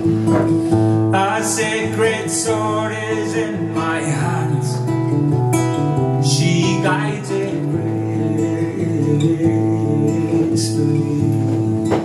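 A man singing a folk song to his own acoustic guitar, the guitar chords ringing underneath the voice.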